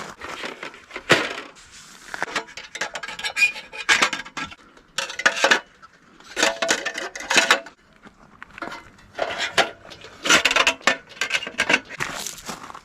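Metal camp gear being handled: irregular bursts of clattering and clinking, some with a brief metallic ring.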